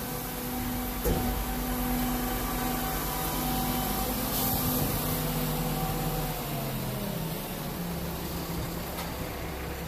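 A motor running steadily with a hum whose pitch sags a little lower about six to seven seconds in. There is a sharp knock about a second in.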